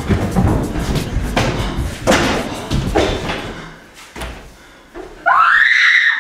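A quick run of thumps and bangs in a room. About five seconds in comes a loud, high cry that rises in pitch and lasts about a second.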